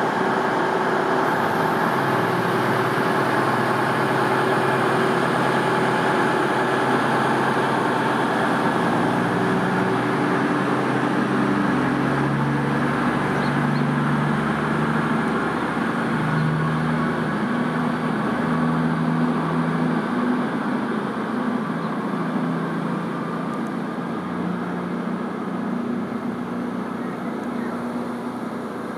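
Diesel trains running through a station: first a Class 66 diesel freight locomotive hauling wagons, then a Virgin Voyager diesel unit. A steady engine drone with several held tones that shift about ten seconds in and ease off slightly near the end.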